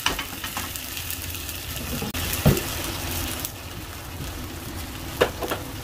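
Bean sprouts in hot water in a very hot iron wok, the water hissing and bubbling steadily as it heats back toward a simmer. A few knocks stand out, the loudest about halfway through.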